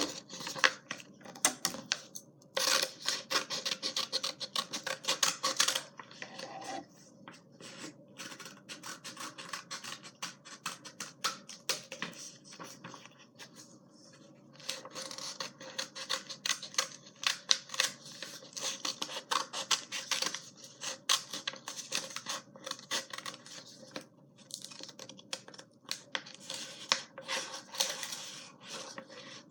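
Sheets of paper being handled and worked on, with irregular scratching, rubbing and rustling and many small clicks.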